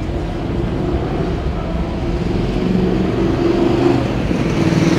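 Street traffic: a motor vehicle's engine running close by, steady, growing somewhat louder in the second half.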